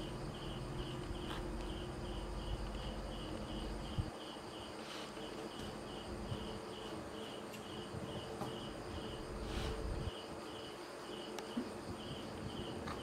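An insect chirping steadily, a high chirp repeating about three times a second, with a few faint taps.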